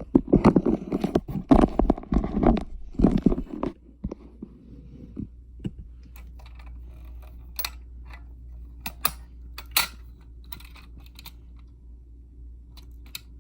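Hands working with wires and small parts: a few seconds of dense rustling and handling noise, then scattered sharp clicks and light rattles over a low steady hum.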